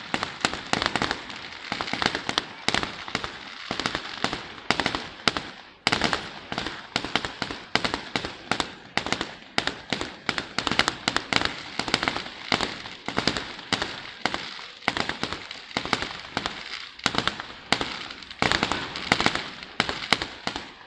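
Fireworks display: a dense, continuous run of sharp bangs and crackles, several a second, with a brief lull about six seconds in.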